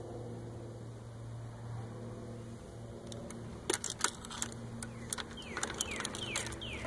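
A low steady hum, then from about halfway a string of sharp clicks and rattles with keys jangling and a few short falling squeaks, as the motorcycle's ignition is switched off and the key handled.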